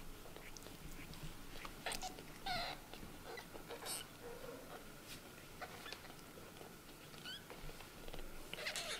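Newborn kittens giving short, high, squeaky mews, about half a dozen scattered through, one rising in pitch, over faint soft clicks and rustling.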